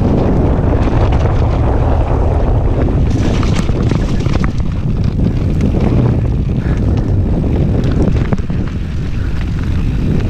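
Wind buffeting the microphone while a mountain bike rides a rough trail, with frequent sharp clicks and knocks of the bike rattling over bumps.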